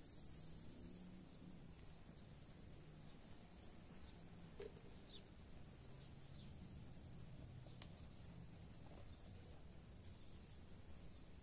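Faint, high insect chirping: short rapid trills, cricket-like, repeating every second or so over a quiet outdoor background, with a few soft clicks.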